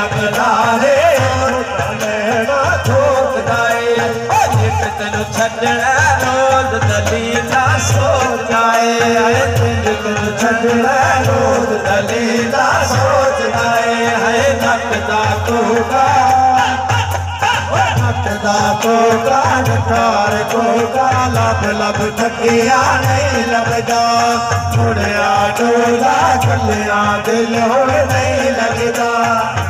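Live qawwali music: hand drums keep a steady beat under melody and singing.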